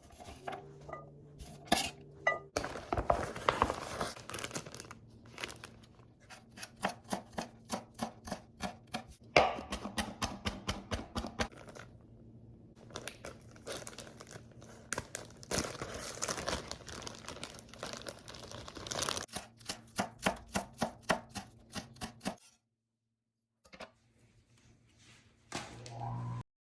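Kitchen knife chopping on a cutting board: runs of quick, even chops, several a second, with short pauses between runs and a silent gap near the end.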